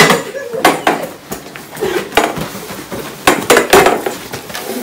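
Scuffle of people wrestling on a tiled floor: a run of irregular knocks, thuds and clatter, about ten in under five seconds, from bodies, hands and a knocked-over folding chair hitting the floor.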